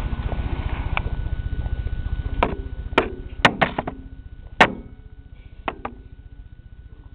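A series of sharp knocks and clicks on hard surfaces, about seven in all, the loudest a little past halfway, over a steady low rumble that fades toward the end.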